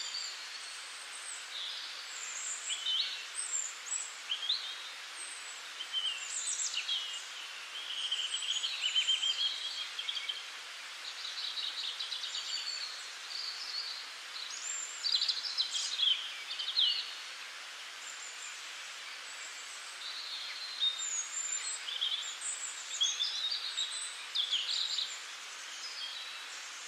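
Small birds chirping and singing, many short calls on and off throughout, over a steady hiss.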